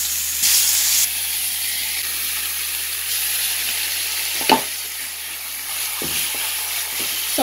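Seasoned meat sizzling as it fries in hot olive oil in a frying pan, the sizzle swelling briefly about half a second in as a piece is laid in. A single sharp knock about four and a half seconds in.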